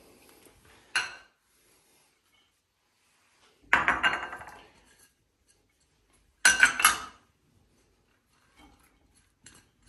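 Ceramic bowls clinking and knocking against a large ceramic serving dish as shredded vegetables are tipped in: a single knock about a second in, a clattering knock near four seconds, and two quick knocks a little after six seconds, with faint ticks near the end.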